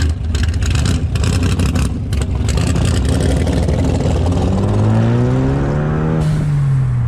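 Car engine pulling hard under acceleration, its pitch rising steadily through the second half and easing off slightly near the end. Wind buffets the microphone through the first part.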